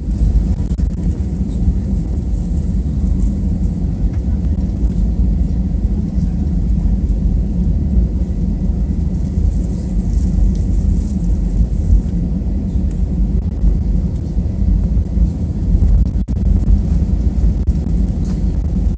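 Airbus A320 cabin noise near the wing: a steady low rumble from the engines and airframe, with a faint steady whine above it, neither rising nor falling.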